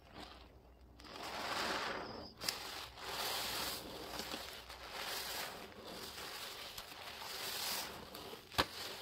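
A soaked sponge squeezed and wrung in a basin of dish-soap suds: wet squelching and crackling foam with water streaming back into the basin, swelling and easing in several waves. A sharp click about two and a half seconds in and another near the end.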